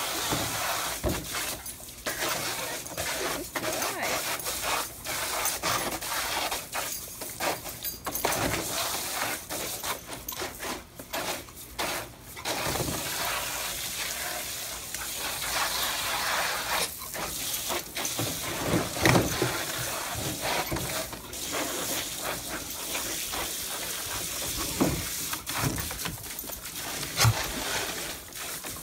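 Garden hose water pouring into a plastic wading pool, a steady splashing hiss broken by irregular splashes as a dog drinks from the pool and bites at the stream.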